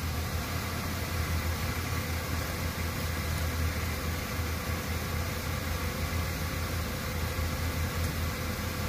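Car engine idling steadily, a low even hum with hiss over it.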